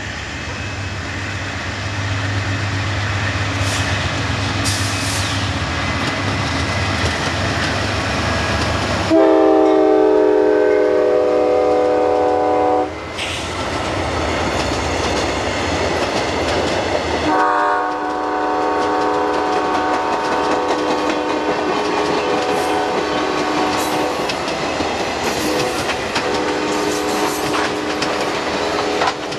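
Diesel-hauled passenger train passing at speed: the locomotive's engine rumble builds as it approaches, then its air horn sounds a loud chord for about four seconds. The cars clatter by over the rail joints, and the horn sounds again from about halfway through, longer and lower in pitch, as the locomotive moves away.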